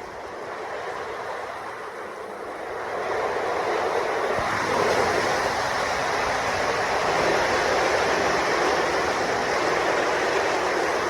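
Steady rush of water, as from heavy rain or flowing floodwater, growing louder about three seconds in and then holding steady.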